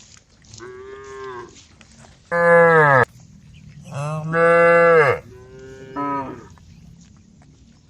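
Cows mooing: four calls in a row. The two in the middle are long and loud, the first is quieter and the last is short.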